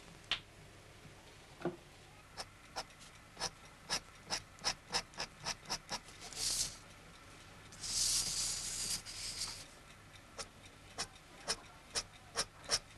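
Hand drawing work on paper at a wooden desk: a run of irregular sharp pen taps, two or three a second, with a short rubbing sound about six and a half seconds in and a longer one from about eight to nine and a half seconds, like an eraser worked over the sheet.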